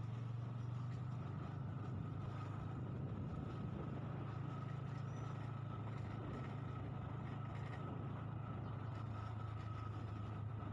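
Engine of a moving vehicle running steadily at an even speed: a constant low drone with a faint steady whine above it.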